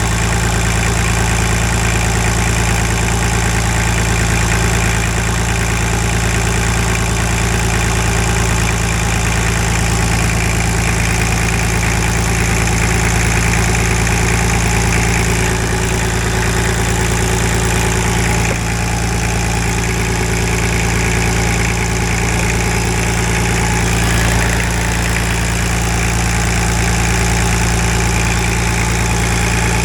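Nissan RD28 2.8-litre inline-six diesel idling steadily, running with a substantial diesel leak from a damaged fuel line.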